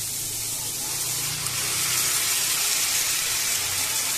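Sardines in tomato sauce poured into a hot pan of sautéed garlic, onion and tomato, the sauce sizzling as it hits the pan and growing louder as more goes in.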